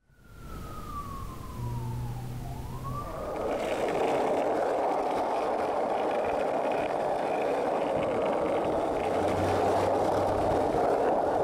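A single siren-like tone falls for about two and a half seconds, then turns briefly upward. After that comes a steady roar of city street traffic, with a skateboard's wheels rolling on the asphalt.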